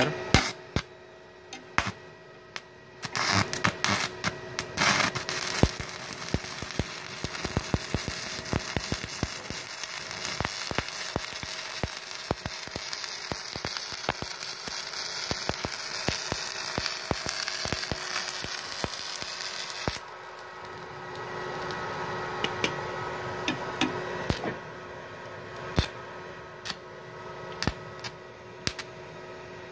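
Stick-welding arc from a Multipro EG 200A SC inverter welder burning a 4 mm electrode at its maximum 200 amps. A few sharp clicks come as the arc is struck, then steady crackling until the arc stops abruptly about twenty seconds in, followed by a few scattered clicks.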